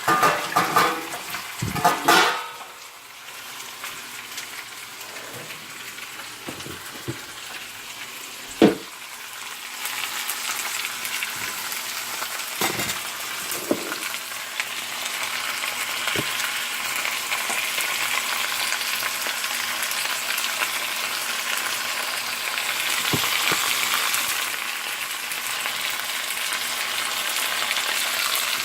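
Chicken frying in oil in a pan with chilli and masala powder: a steady sizzle that grows louder from about ten seconds in, with occasional knocks of a utensil against the pan as it is stirred. A few louder noises come in the first two seconds.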